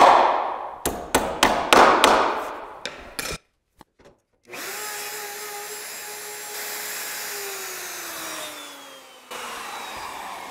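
A hammer taps the small nails of a hinge-mortise template into a door edge, several quick light taps over about three seconds. After a short pause a corded Bosch router starts and runs steadily at a high whine while cutting a hinge mortise. It is then switched off, and its pitch falls slowly as the bit spins down.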